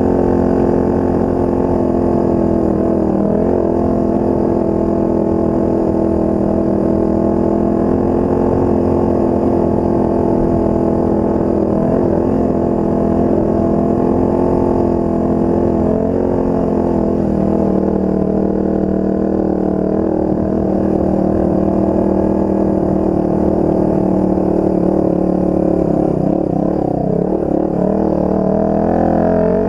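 Off-road vehicle engine running at a fairly steady throttle through the trail, its pitch dipping briefly a few times, around four, twelve, sixteen and twenty-seven seconds in, as the throttle is eased and opened again.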